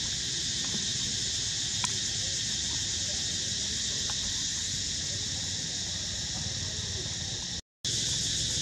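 Steady, high-pitched chorus of insects droning without pause. It breaks off for a split second near the end.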